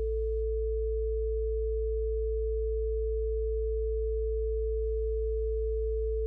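Steady pure sine tones for sound therapy: a low 55 Hz tone under a steady higher tone, held unchanged.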